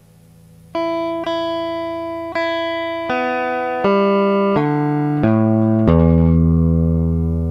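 Telecaster electric guitar on its stock Ganee neck pickup, played clean straight into an audio interface with no amp or effects: a run of single plucked notes, then a lower note struck near the end and left ringing.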